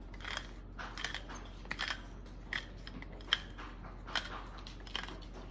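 Seasoning being put on raw chicken breasts: short, dry, crunching clicks, irregular, about two or three a second.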